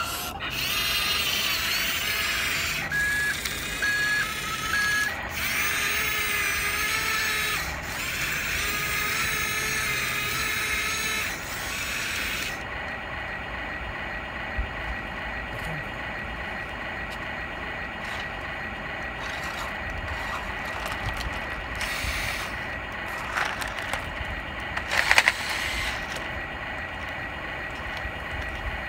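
Small electric motors and plastic gearboxes of a toy remote-control crawler excavator whining as it drives and turns, busier for the first twelve seconds and steadier after. Three short beeps come about three seconds in, and a sharp clatter sounds near the end.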